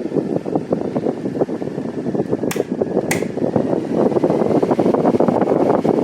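Mondial Maxi Power NV-15 six-blade table fan running, its airflow buffeting the microphone in a fluttering rush. Two sharp clicks come about half a second apart midway, and the sound grows louder about four seconds in.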